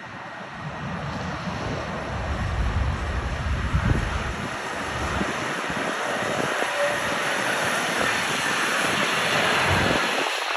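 Jet engines of a Boeing 767-300ER on landing approach, a steady roar growing louder as the airliner nears. Gusts of wind buffet the microphone.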